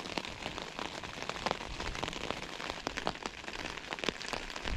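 Rain pattering on a Naturehike Mongar 2 tent's flysheet, heard from inside the tent: a steady hiss with many separate, irregular drop ticks.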